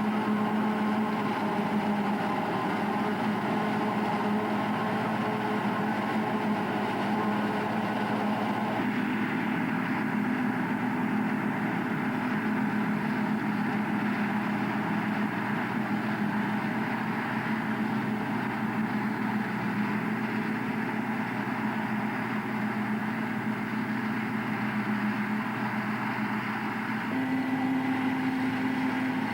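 A self-propelled forage harvester's diesel engine and cutting gear running steadily in maize. Its hum changes note about nine seconds in and again near the end.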